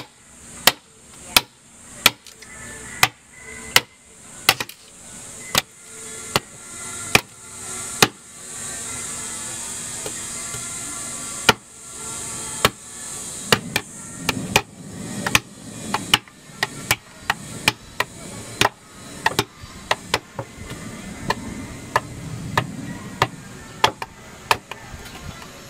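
Woodcarving tools striking a wooden block: sharp, evenly spaced chisel knocks about one every 0.7 s, then after a few seconds' pause, quicker chops of about two to three a second as a bolo knife hacks at the wood.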